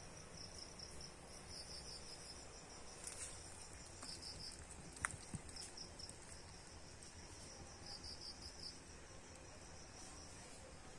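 Night insects chirping faintly in a steady, high, pulsing trill, with a single sharp click about five seconds in.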